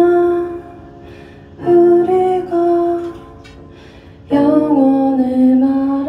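A woman singing three long-held phrases with short quieter gaps between them, accompanied by a Kurzweil SP2X digital stage piano.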